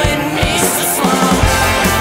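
Rock music soundtrack with a steady drum beat and bass.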